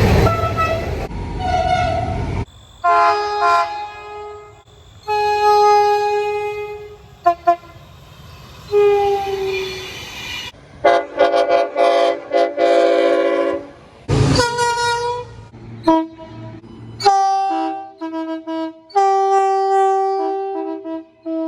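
Locomotive air horns sounding in a string of back-to-back clips cut abruptly together: short and long blasts, some one steady note and some multi-note chords. A heavy train rumble runs under the first couple of seconds, and there is a brief loud noise about 14 seconds in.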